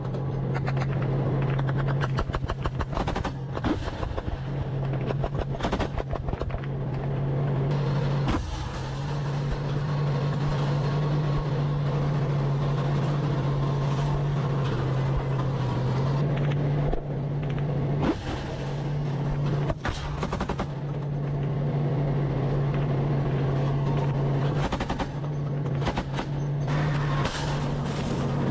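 Tank's diesel engine running with a steady low drone, broken off briefly several times. Repeated sharp cracks and bangs fall over it, thickest in the first few seconds and again near the end.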